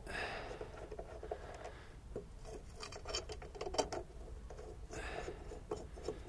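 Metal lawnmower blade being handled and fitted onto the mower's spindle by hand, with scraping and rubbing against the deck and scattered light metal clicks as the blade bolt is started on its thread.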